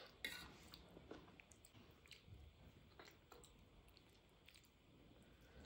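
Faint eating sounds: a steel spoon clinks once against a steel pan just after the start, followed by soft, wet squishes and light chewing as rice and mutton curry are mixed by hand on a steel plate.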